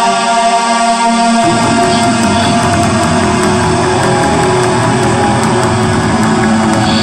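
Loud electric guitar playing with a band. About a second and a half in, a heavier low part comes in under the held guitar notes and carries on.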